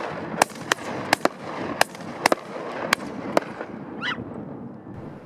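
Rapid, irregular volley of gunshots, about nine in the first three and a half seconds, from shooters culling geese. The firing then stops, and one short call follows about four seconds in.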